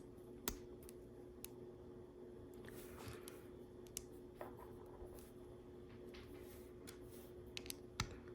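Plastic LEGO bricks being handled and pressed together: a few faint, scattered clicks and taps, the sharpest about half a second in and near the end, over a faint steady hum.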